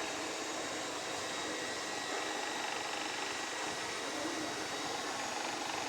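Plant growth chamber running: a steady whirring noise from its air-moving and cooling machinery, with a faint high whine.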